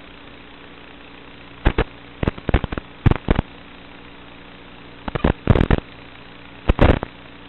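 A steady hum broken by three clusters of loud, sharp crackles and pops: the first about a second and a half in, the next about five seconds in, and a short one near the end.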